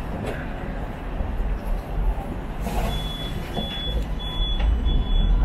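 Low rumble of a Hong Kong double-decker electric tram running along the street. From about halfway, a short high electronic beep repeats about five times, roughly one and a half beeps a second.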